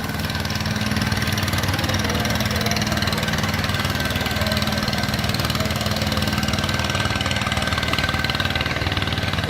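An engine idling steadily, with a fast, even pulse and a constant level.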